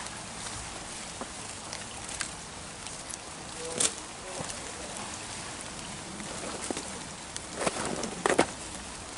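Steady hiss of rain and flowing brook water, with a few brief clicks and rustles as a magnet-fishing rope is handled through ivy and branches, bunched together near the end.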